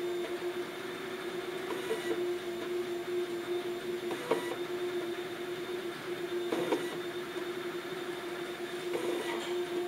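Kysan 1124090 NEMA 17 bipolar stepper motor spinning steadily under an Arduino Motor Shield R3, giving a constant pitched whine at its step rate. A short knock comes about every two and a half seconds.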